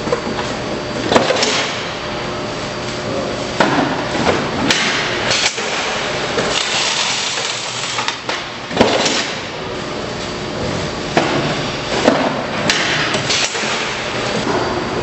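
BEL 252 case sealer running with a steady machine hum. Cardboard cases are folded and fed through it, giving irregular knocks and clatter every second or two, mixed with short scraping, rasping noises.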